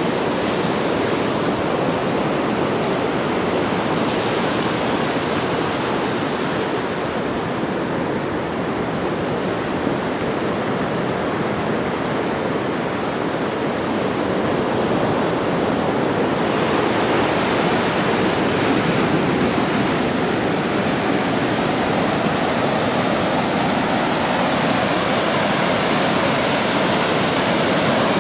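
Surf breaking on a sandy beach: a steady rush of waves with no pauses, growing a little louder in the second half.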